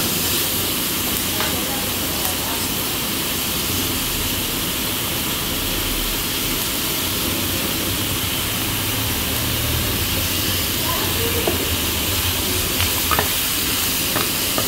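Seafood stir-fry of shrimp, squid, onion and peppers sizzling steadily in a hot skillet, turned with a wooden spoon.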